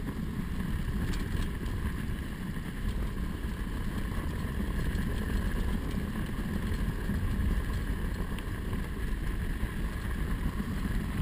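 Steady rushing noise of a dog sled running over packed snow, with low wind rumble on the microphone.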